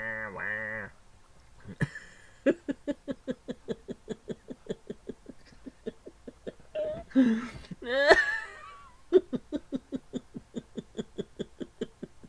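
A man's nasal duck-quack imitation ends about a second in. It is followed by rapid rhythmic laughter, about four short bursts a second, with a louder squealing laugh that rises in pitch near the middle.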